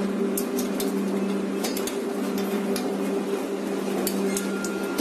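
A steady hum with a low tone and a higher one above it, unchanged throughout, with scattered light clicks and taps of small metal parts and a hex key being handled against a steel printer frame.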